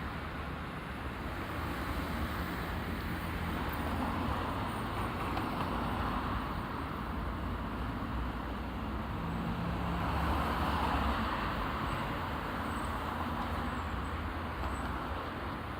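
Road traffic at a street intersection: a continuous wash of cars passing, with engine rumble and tyre noise. It swells as vehicles go by, loudest about ten seconds in.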